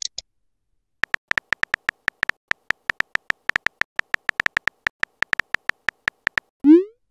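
Simulated phone-keyboard key clicks from a text-message app: a quick, uneven run of short clicky taps for about five seconds as a message is typed. Near the end comes a short rising swoosh as the message is sent.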